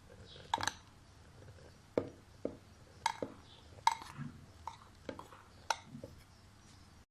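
Scattered light clinks and knocks of kitchen utensils and containers being handled, about eight separate taps spread over several seconds.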